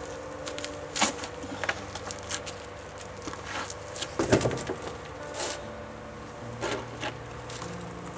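Footsteps and thuds of a worker in rubber boots stepping down onto wooden planks, with a few light knocks. The loudest thud comes about four seconds in, over a faint steady hum.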